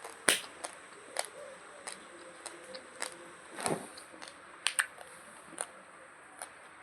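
Dry, raw long-grain basmati rice crunching and cracking between a person's teeth as it is chewed: sharp, irregular cracks about two a second, the loudest one just after the start.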